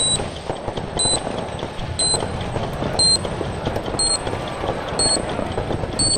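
Countdown-timer sound effect: a short high electronic beep once a second, each beep slightly higher in pitch than the one before, over a dense, steady noisy background.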